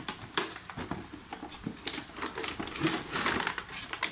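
A toy car's cardboard box being opened and its packaging handled: scattered clicks and taps, with denser rustling in the second half.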